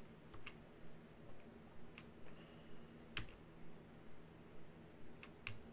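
Sharp clicks at a computer, roughly two a second, as listing photos are paged through, over a faint low steady hum.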